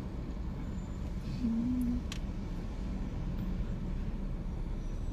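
Steady low rumble of a car's engine and tyres heard from inside the cabin while driving. A brief low hum comes about one and a half seconds in, and a single sharp click follows just after.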